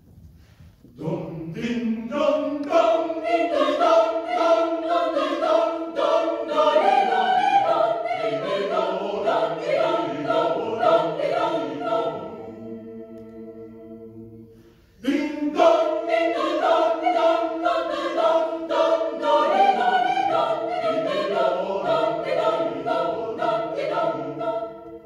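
Mixed choir of men's and women's voices singing a cappella in short, rhythmic notes. The first phrase dies away into a softer held chord about twelve seconds in. A second loud phrase enters suddenly about fifteen seconds in and closes on a held chord.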